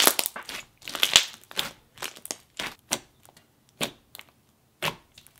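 Coated clear jelly cube slime with sponge pieces being pressed, folded and poked by hand, giving a run of short pops and clicks, about two a second, the loudest at the very start and about a second in.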